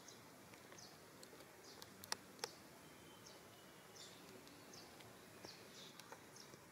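Faint outdoor ambience: a steady low hiss with a short high chirp repeating every half second or so. Two sharp clicks stand out about two seconds in.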